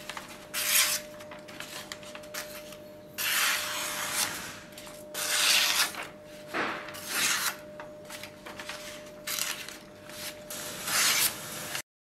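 Bowie knife blade slicing through paper, about seven short papery rasps: the freshly stropped edge being tested for sharpness. A faint steady tone runs underneath, and the sound cuts off suddenly near the end.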